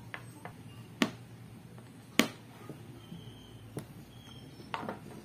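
Sharp clicks and taps from a screwdriver and a small wooden lure blank knocking on a plastic cutting board during handwork: two loud clicks about one and two seconds in, and several fainter ones, over a low steady hum.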